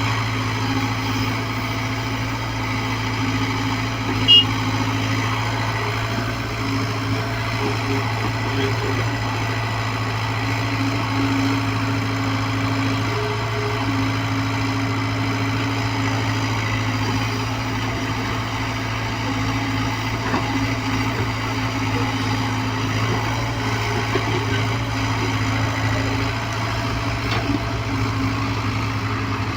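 Hyundai excavator's diesel engine running steadily with a low, even hum. There is one brief sharp knock about four seconds in.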